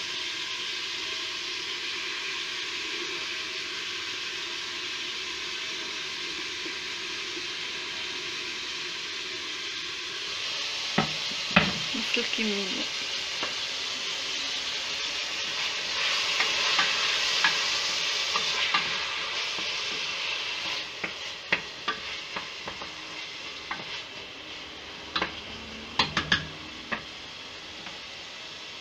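Meat, onion and tomato frying in oil in a stainless steel pressure-cooker pot: a steady sizzle that grows louder for a few seconds past the middle and then quiets. Now and then a spoon stirring knocks and clicks against the pot.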